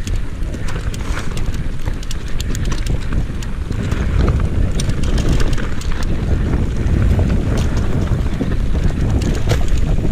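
Mountain bike rolling down a rough dirt singletrack: tyre rumble and rapid rattling clicks from the bike over roots and stones, with wind buffeting the on-bike camera microphone. It grows louder about four seconds in.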